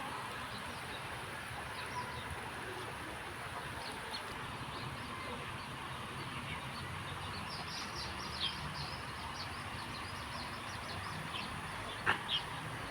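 Birds giving many short, high chirps over a steady outdoor hiss, busiest in the middle and later part, with one sharp click near the end.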